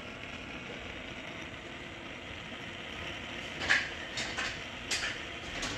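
Double LPG gas burner set burning with a steady rushing noise. From about three and a half seconds in come several sharp clicks, the first the loudest.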